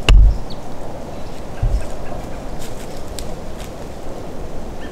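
A sharp knock with a low thump right at the start, then the steady rush of woods ambience and wind on the microphone, with a few faint, short bird chirps.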